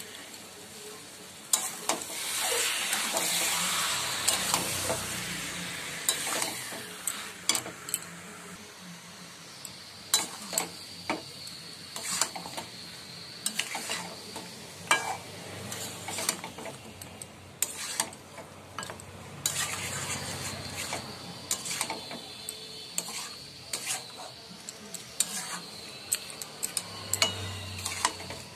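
Mutton pieces sizzling in oil in a kadai as they are browned with spices (bhuna), stirred and turned with a metal spatula that scrapes and clicks against the pan. The sizzle is loudest a few seconds in.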